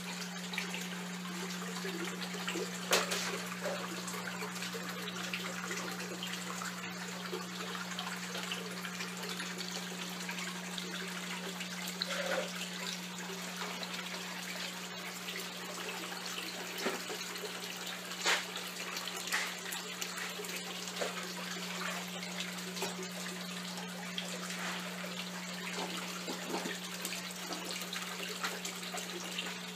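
Water splashing and bubbling steadily into an aquaponics sump tank, over a steady low hum. A few faint knocks come through now and then.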